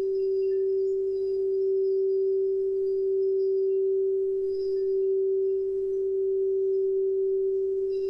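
Quartz crystal singing bowl sung by circling a wand around its rim: one very loud steady tone that swells and eases slightly, with faint high overtones above it.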